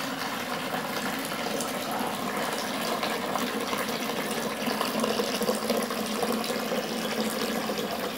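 Water pouring steadily in a thin stream into a plastic bowl: the hot cooling water being drained through a tube from the top pot of a metal still used to distil orange-blossom water, so that it can be refilled with cold water.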